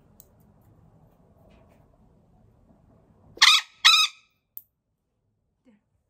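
Two loud, harsh squawks, one right after the other about three and a half seconds in, from a baby golden conure held wrapped in a towel: distress calls while restrained for a toenail blood sample.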